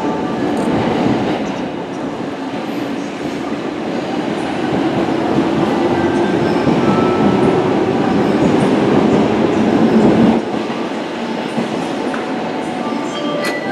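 Electric commuter train pulling out of the platform, running and wheels clattering over the rail joints as it gathers speed, building to a peak and then dropping away sharply about ten seconds in.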